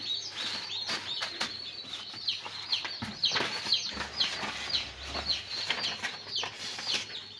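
Newly hatched domestic chicks peeping over and over: a steady string of short, high, falling cheeps, several a second.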